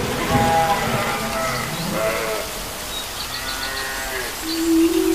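A small child whining in a few short, wavering cries. Near the end, soft instrumental music with long held notes comes in.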